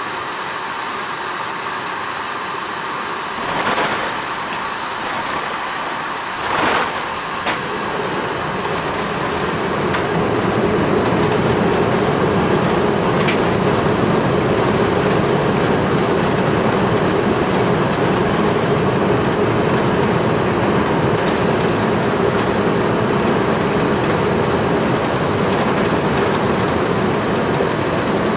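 Steady cabin roar of an Airbus A380 on final approach, the airflow and engine noise heard from inside the passenger cabin. It grows louder and deeper about ten seconds in. Two short thumps come a few seconds apart early on.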